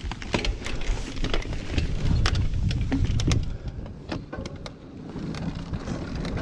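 Mountain bike rolling down a dirt and gravel trail: frequent sharp clicks and rattles as the tyres and frame go over stones and bumps, over a low wind rumble on the microphone that swells in the middle.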